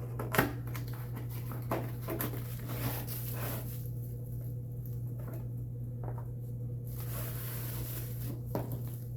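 Box and bubble-wrap packaging being handled, with scattered clicks and light rustling over a steady low hum.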